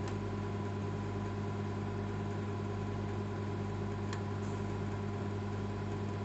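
Old microwave oven running: a steady electrical hum with a faint tick about four seconds in.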